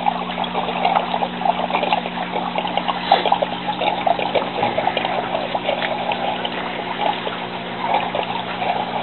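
Water trickling and splashing as it cascades through the PVC grow tubes of a vertical aquaponics garden, over a steady low hum.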